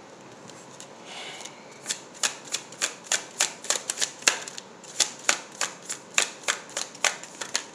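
Tarot deck shuffled by hand: a brief soft rustle about a second in, then a steady run of sharp card snaps, about three a second.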